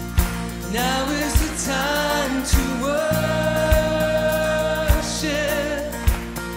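Recorded Christian worship song: a singer over a backing band, with a drum beat about every second and one long held note in the middle.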